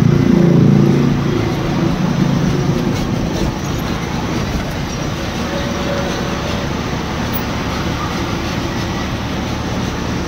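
Cab interior of an Eicher Pro 2114XP truck, four-cylinder diesel, carrying a cement load at highway speed: steady engine drone with road and wind noise. The low rumble is heaviest in the first couple of seconds while another truck runs close alongside.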